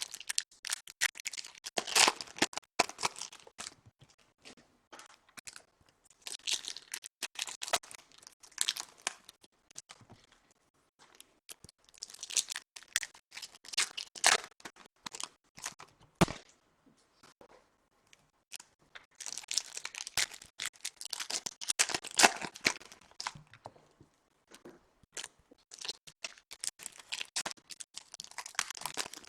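2014 Topps Chrome foil card packs being torn open and crinkled by hand, in crackly bursts of a few seconds with short pauses between, and a single sharp click about sixteen seconds in.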